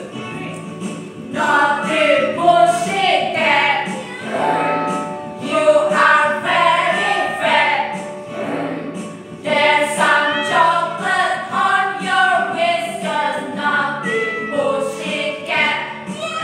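A group of women singing a children's song in unison over electronic keyboard accompaniment. The keyboard's low notes repeat steadily throughout, and the voices come in about a second in.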